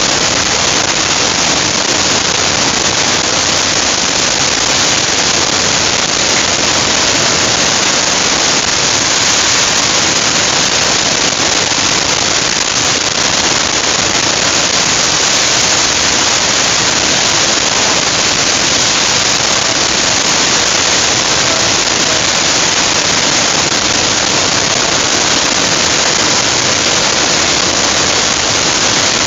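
Niagara Falls' curtain of water pouring past the tunnel portal: a loud, steady rush of falling water.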